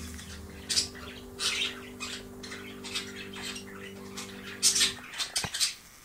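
Pet budgerigars chattering in short, scratchy chirps and squawks, a fresh burst every half second or so, as a courting pair does when flirting. Under them is a low steady hum that cuts off about five seconds in.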